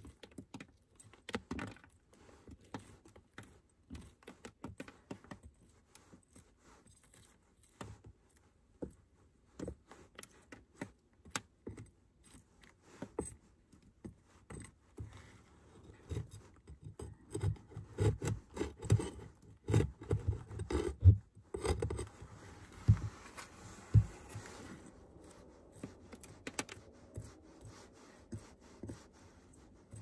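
Metal hive tool scraping and picking at beeswax comb cells, prying dead bees out of a dead-out colony's frame: irregular clicks and scratches, busier and louder in the second half, with a couple of sharper knocks around twenty seconds in.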